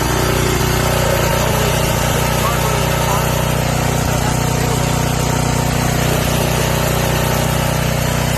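Briggs & Stratton 5250-watt portable generator's engine running at a steady, even speed after its carburetor rebuild.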